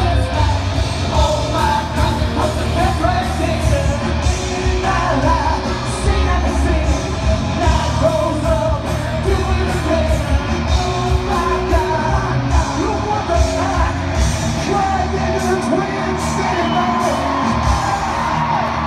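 Live rock band playing loudly with a singer, heard from the audience in an arena through a phone microphone.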